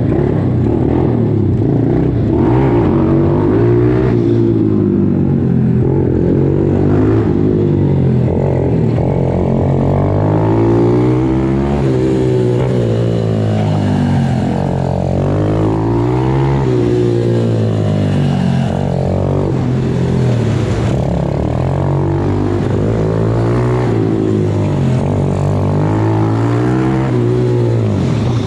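MRF 120 RC pit bike engine, heard on board, revving up and dropping back over and over as the throttle is opened and closed through the laps.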